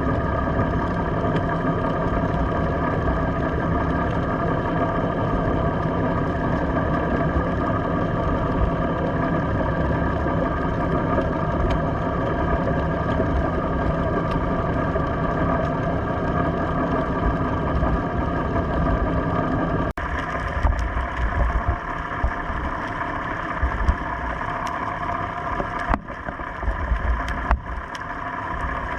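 Boat engine idling: a steady hum made of many even, level tones. About two-thirds of the way through the sound shifts, and uneven low bumps and rumbles come in over it.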